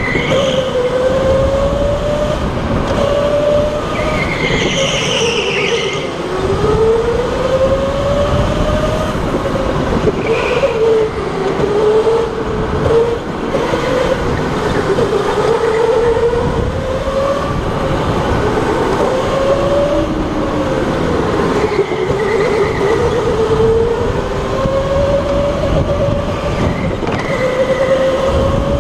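Electric indoor go-kart's motor whining, its pitch rising and falling over and over as the kart speeds up on the straights and slows for the corners, over a steady rumble from the chassis and tyres on the track. A brief high squeal about five seconds in.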